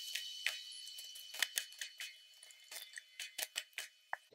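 Faint, scattered clicks and light creaks of a cork head being twisted and pressed onto a dried egg gourd in the hands.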